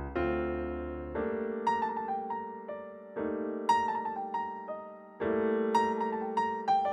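Background piano music: held chords struck about every two seconds and fading away, with a melody of short notes over them.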